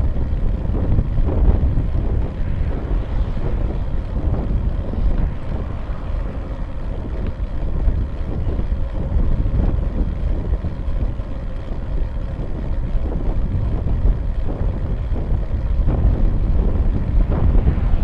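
Wind buffeting the microphone of a bike-mounted Cycliq camera on a moving bicycle: a steady low rumble, a little louder near the end.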